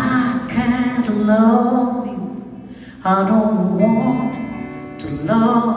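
A woman singing live with a twelve-string acoustic guitar: sung phrases with two short breaks between them, over the guitar's steady chords.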